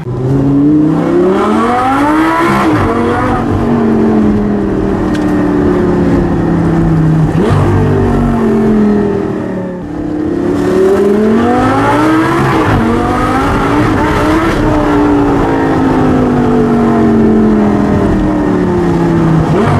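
Lamborghini Gallardo V10 heard from inside the cabin, revving up twice in quick climbs in pitch, each followed by a long, slow fall in pitch. A few short sharp cracks come through along the way.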